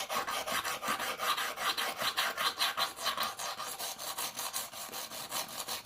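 Coarse Lansky hone stone stroked rapidly back and forth along the S30V steel edge of a Leatherman blade held in the Lansky clamp: a steady scratchy rasp, several strokes a second.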